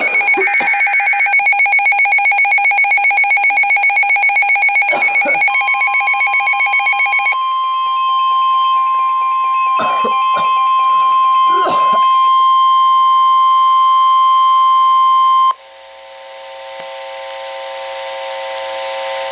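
Emergency Alert System warning tones: a brief data-burst squawk in the first second, then a multi-tone beep pulsing about four times a second for roughly seven seconds. A steady single alarm tone near 1 kHz follows, typical of NOAA Weather Radio's warning alarm tone, for about ten seconds and cuts off suddenly. A softer cluster of steady tones swells up near the end.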